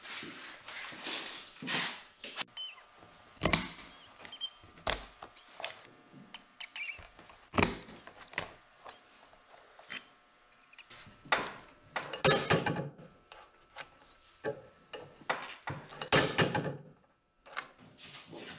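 Stiff leather boot uppers being handled, flexed and set down on a workbench: rustling and scattered knocks and thunks, with a few short high squeaks in the first few seconds.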